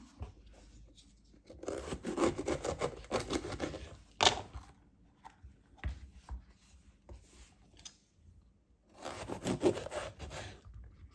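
Serrated knife sawing through raw bell peppers on a wooden board: a crisp, crackling crunch of the firm flesh, in two bursts, the first ending in one sharp crack, with small clicks and taps in between.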